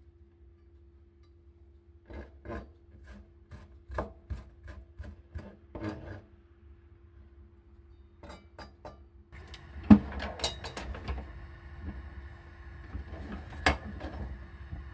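A kitchen knife cuts food on a wooden chopping board in a steady run of about a dozen strokes, about three a second. After a pause come a few light clicks. Then a steady hiss starts, broken by two sharp knocks.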